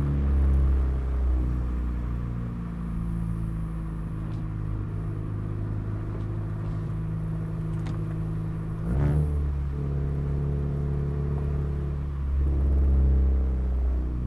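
Audi A3 2.0 TFSI's turbocharged four-cylinder engine through an aftermarket downpipe and cat-back exhaust, pulling on the road. The engine note falls as the throttle eases at the start, then holds a steady drone. About nine seconds in there is a brief sharp burst as the gear changes, and the drone carries on at a new pitch.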